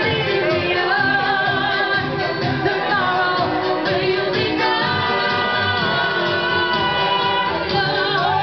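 A woman singing karaoke into a microphone over a recorded backing track, amplified through PA speakers.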